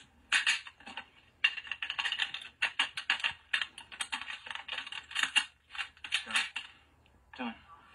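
Rapid, irregular clicking and clacking, dense through most of the stretch and easing off near the end, played from a film soundtrack through a TV's speaker.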